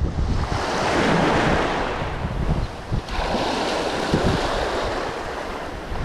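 Small sea waves breaking and washing up the beach in two surges, the second starting suddenly about three seconds in, with wind rumbling on the microphone.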